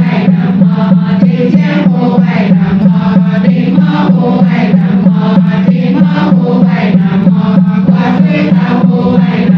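Large group of women chanting Chinese Buddhist scripture in unison, held on one steady reciting pitch with an even beat of about two syllables a second.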